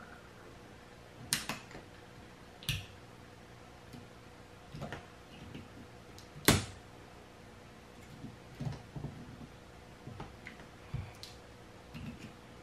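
Scattered sharp clicks and snaps of pliers working on a scooter's lithium-ion battery pack as its parts are taken off one by one, the loudest snap about six and a half seconds in.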